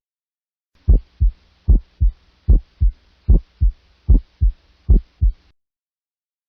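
Heart sounds heard by auscultation: six lub-dub beats, about 75 a minute, the first sound of each pair louder than the second.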